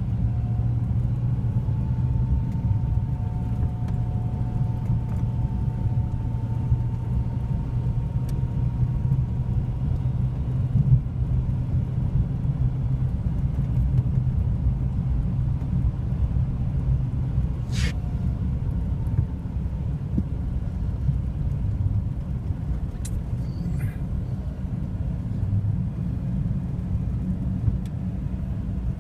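A steady low rumble, with a faint thin tone above it during the first half.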